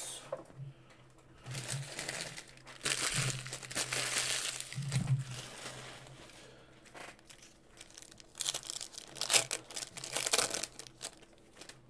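A foil trading-card pack wrapper is crinkled and torn open, in three bursts of crackly rustling.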